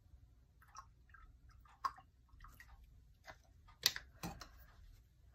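A few faint clicks and light knocks of small things being handled on a desk, with three sharper clicks about two seconds, four seconds and a little after four seconds in, over a low steady hum.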